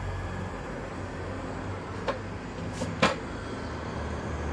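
A few short knocks in the second half, the loudest about three seconds in, as a stainless steel round portlight is pushed and seated into its rough-cut hole in the fibreglass cabin side, over a steady low hum.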